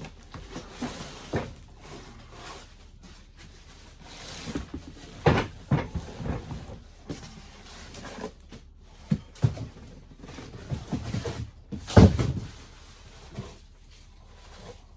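Handling noise from unpacking a heavy benchtop wood lathe: cardboard and foam packing scraping and rustling, with irregular knocks and thumps. The loudest thump comes late on.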